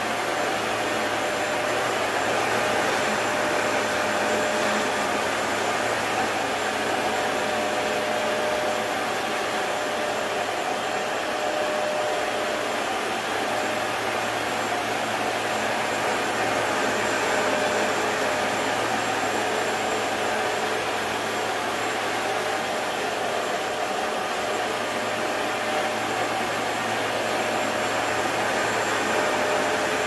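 Bissell TurboClean PowerBrush Pet compact carpet cleaner running steadily, a constant motor and suction drone with a faint high whistle, as it cleans a stained rug.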